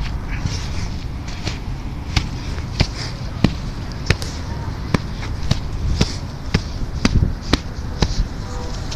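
A shovel striking and scraping dirt in a series of sharp knocks, about one or two a second, as loose soil is shovelled back into a small hole and tamped down.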